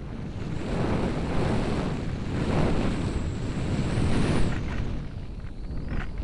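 Wind buffeting the microphone, swelling and easing, mixed with the broad roar of a Eurofighter Typhoon's jet engines and a faint high whine.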